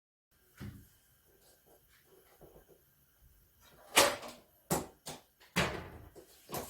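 A series of sharp knocks and clacks from objects being handled, the loudest about four seconds in, followed by three more, with quieter rustling and a soft thump near the start.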